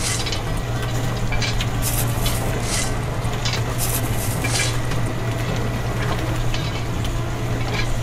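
Small metal scoop digging and scraping through a load of wheat grains, the grains rattling and pouring in short bursts every half second or so, over a steady low hum.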